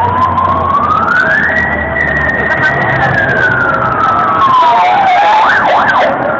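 Police van siren sounding one slow wail that rises, holds high, then falls, followed near the end by a few quick up-and-down yelps, over crowd noise.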